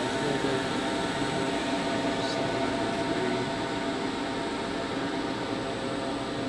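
Vertical milling machine running steadily, its spindle turning a drill bit set up to drill holes in an aluminium plate: an even mechanical hum with several steady tones.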